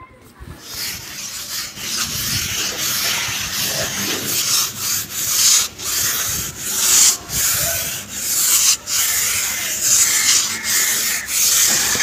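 Hand float rubbing over fresh cement-sand plaster in repeated scraping strokes, starting about half a second in: the wet plaster coat being levelled and smoothed on the wall.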